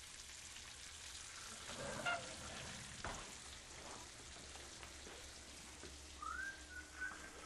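Strips of bacon frying on an electric griddle: a steady sizzle with the fat crackling in small pops. A faint whistle-like tone rises and then holds near the end.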